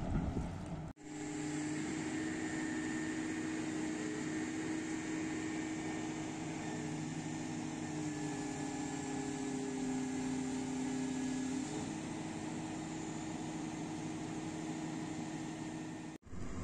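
Caterpillar tracked excavator's diesel engine running steadily, its tone shifting about halfway through and again a few seconds later. A second of wind and outdoor noise opens it before an abrupt cut.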